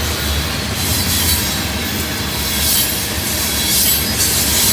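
Freight train of tank cars rolling past close by: a steady rumble of steel wheels on rail, with high-pitched wheel squeal that swells and fades several times.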